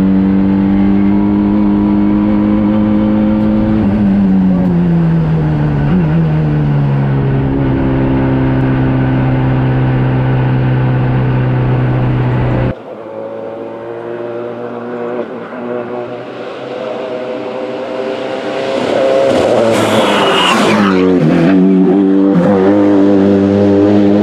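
Inside the cabin, the Renault Clio E1 Turbo's Mégane RS 2.0-litre turbocharged four-cylinder holds steady high revs, then the revs fall over about three seconds and hold lower. About halfway through the sound cuts to the car heard from the roadside. It grows louder and passes close by near the end, its engine note dipping as it goes past.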